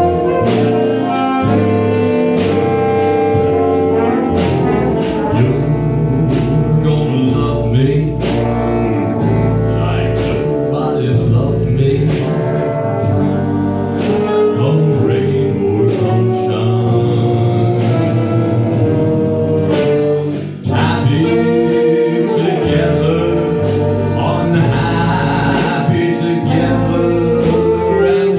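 Big band playing a swing arrangement, with the brass section carrying the tune over a steady rhythm section. The band drops back briefly about two-thirds of the way through, then comes in again.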